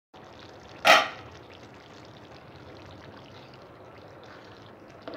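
Bottle gourd curry simmering in a pan, a steady bubbling hiss, with one loud sharp clack about a second in and a lighter click near the end.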